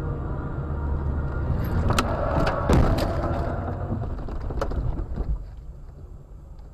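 Road and engine noise inside a moving car, then a crash: a cluster of sharp bangs and knocks about two seconds in, the loudest near three seconds, and one more knock near five seconds, after which the noise dies down.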